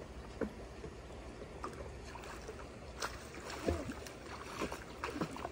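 Light, irregular splashing of a young child kicking and stroking through pool water, over a low steady rumble.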